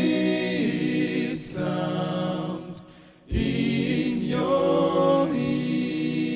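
Eight-voice male a cappella group singing sustained close-harmony chords. The sound drops away briefly about three seconds in, then a new chord enters.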